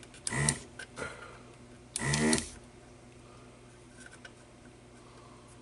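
Two short mumbled vocal sounds, one about half a second in and a louder one about two seconds in, then a few faint clicks of small parts being handled.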